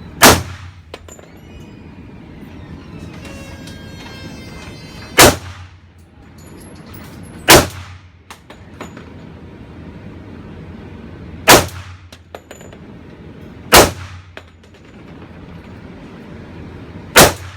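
Kimber Stainless II 1911 .45 ACP pistol fired six times in slow, deliberate shots spaced about two to five seconds apart, each a sharp bang with a short ringing tail. It runs without a hitch or jam.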